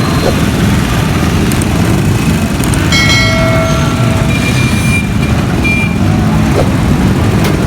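Steady loud rumble of a running motor or engine, with a brief high-pitched tone about three seconds in.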